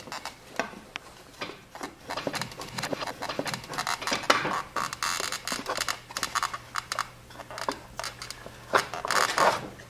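A snowblower's rubber track and cog being worked into place by hand: irregular knocks, clicks and scraping and rubbing, over a faint steady low hum.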